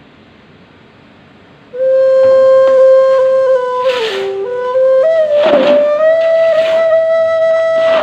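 Indonesian bamboo suling flute playing a slow phrase of long held notes, beginning about two seconds in after a short pause. The line dips to a lower note near the middle, then rises to a higher note that is held to the end, with breathy puffs of air at several points.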